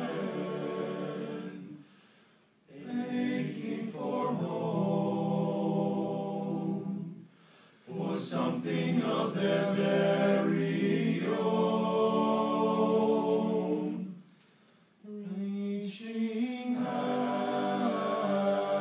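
Male vocal octet singing a cappella in harmony: sustained chords in long phrases, with three short pauses between phrases.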